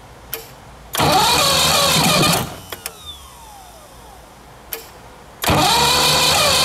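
1976 Mercury inline-six two-stroke outboard being cranked on its electric starter in two tries: a solenoid click, about a second and a half of cranking, a falling whir as it spins down, then another click and cranking again near the end. It is a hard start, which the owner puts down to water getting onto the plugs through a failed water jacket.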